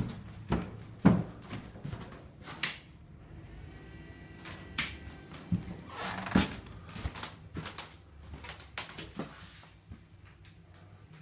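Footsteps on an indoor floor, then a scattering of knocks and clicks.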